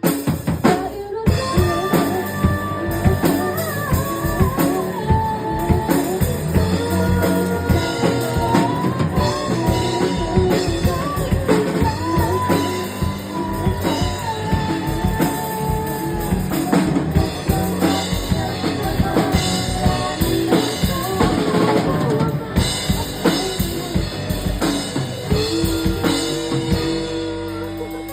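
Drum kit played through a Mandopop song in rehearsal, with steady kick and snare strokes under a sung melody and the rest of the band.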